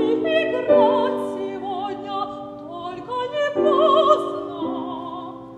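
A woman's operatic voice singing in Russian with wide vibrato, over held piano chords. The voice ends about four and a half seconds in and the last chord fades away.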